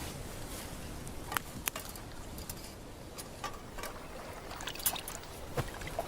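Water trickling and lapping, with scattered sharp clicks and knocks over a steady low rumble.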